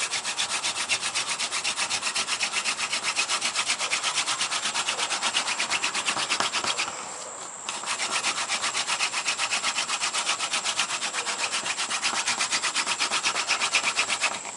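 Yucca spindle spun back and forth between the palms in a hand drill, grinding into a Ganoderma fungus base in fast, even rubbing strokes, several a second, with a short break about seven seconds in. The friction is building heat toward an ember.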